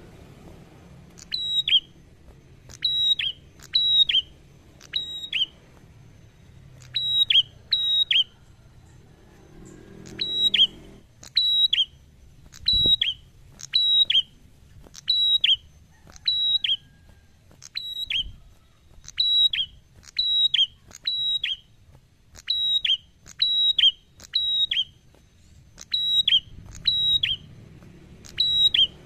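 Caged prenjak songbird calling loudly over and over, about one sharp, quickly falling note a second, with a short pause about a third of the way through.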